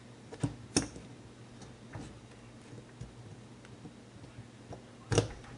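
Small metal carburetor parts clicking and tapping as the plunger and its spring are worked into the carburetor body: two sharp clicks near the start, a few faint ticks, then a louder click about five seconds in, over a faint low hum.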